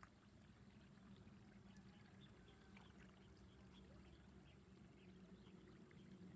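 Near silence: a faint steady low hum with a few faint scattered ticks.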